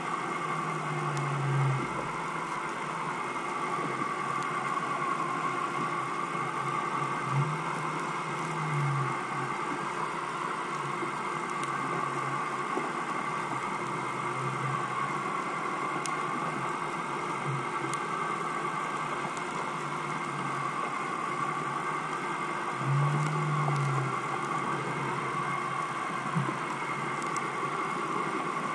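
Steady mechanical drone with a slowly wavering hum, heard underwater through a camera housing. Three times a short, low swelling sound rises and falls over it.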